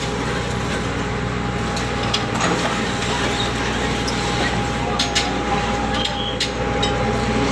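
Ship machinery running steadily, a constant drone with a steady whine on top, and a few sharp knocks about five seconds in and again near the end.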